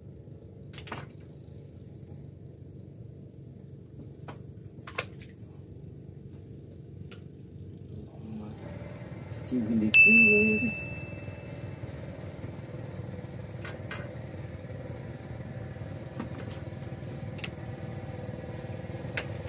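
A steady low engine hum, and about ten seconds in a single bright ding that rings out for about two seconds.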